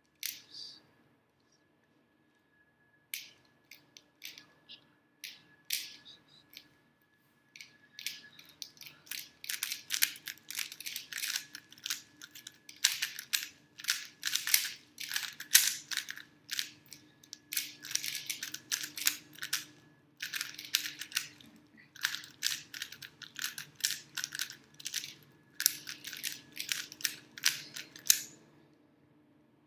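Rubik's cube layers turned fast by hand: plastic clicking, a few scattered turns at first, then from about eight seconds in long rapid runs of clicks with short pauses between them.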